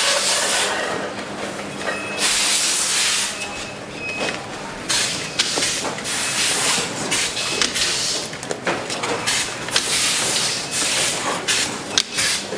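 Factory assembly-line noise: repeated hissing bursts, each about a second long, several times over, among short clicks and clatter and a faint steady hum.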